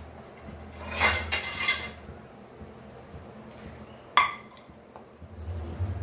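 Kitchen dishes and cutlery clattering for about a second, starting about a second in, then a single sharp clink just after four seconds.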